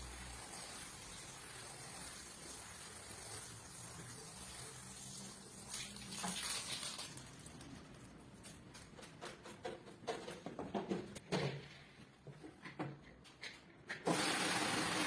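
Water running faintly during a rug wash, then scattered short knocks and scrapes, then a loud steady machine noise that starts suddenly near the end.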